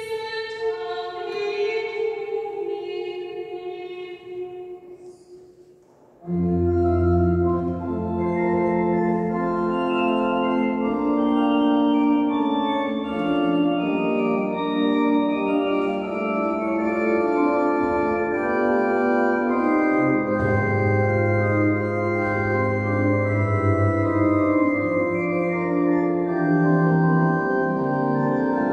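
A held chord dies away over the first few seconds, then about six seconds in a church organ comes in loudly, playing sustained full chords over a deep pedal bass that change every second or so.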